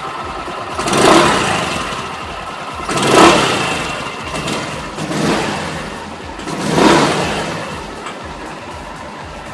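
Freshly reassembled Suzuki AN125 scooter's 125 cc single-cylinder four-stroke engine running, with the throttle blipped four times so that it revs up and falls back each time about every two seconds.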